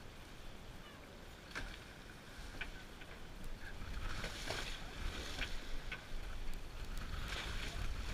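Water sloshing and lapping against the hull of a small fishing boat, swelling twice, over a low wind rumble on the microphone, with a few light knocks.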